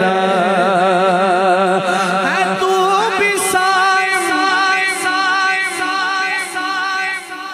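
Male naat reciter singing into a microphone, holding long wordless notes with a wide vibrato. The note steps down to a lower pitch about three seconds in.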